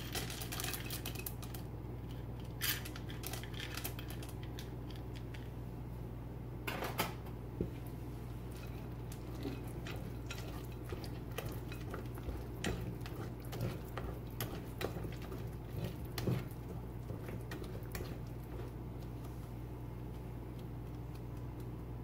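A wire whisk clinking and scraping against a glass mixing bowl in irregular taps as chocolate chips are stirred into batter. Near the start, chocolate chips rattle out of a metal measuring cup into the bowl.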